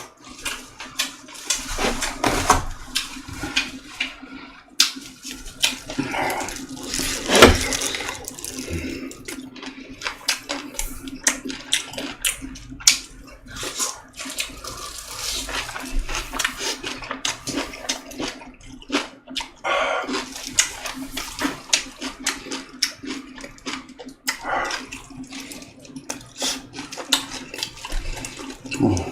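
Close-up eating sounds of a person slurping and chewing chicken soup, with many wet smacks and sharp clicks. A steady low hum runs underneath.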